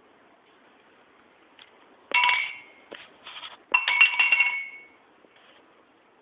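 An empty tumbler being knocked about by a cat, clattering and ringing. There are two loud clatters, the first about two seconds in and a longer one about four seconds in, with a few lighter knocks between them.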